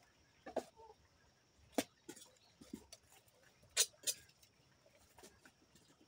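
Scattered sharp clicks and knocks from plastic plant pots being handled on a wooden potting bench. The loudest come about two seconds in and as a close pair near four seconds.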